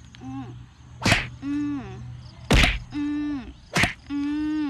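A knife chopping into a bamboo tube to split it open: three sharp whacks, about one every second and a half. Between the whacks a held humming tone sounds four times.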